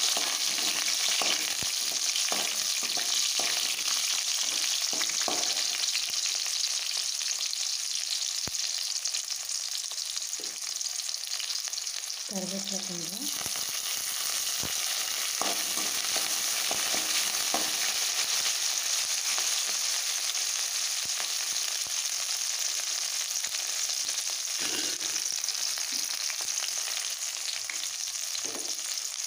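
Shallots and green chillies sizzling in hot groundnut oil in a metal kadai, the tempering for a kuzhambu, with a steady frying hiss. A slotted metal spoon scrapes and clicks against the pan again and again as they are stirred.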